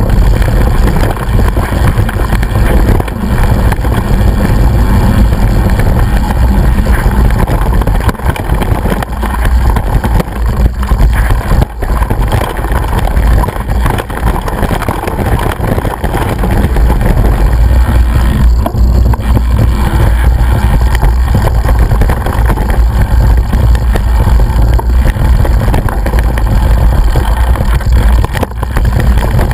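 Loud, steady wind rumble and rattle from a camera mounted on a bike speeding down a rough dirt trail, with a few sharp knocks from bumps.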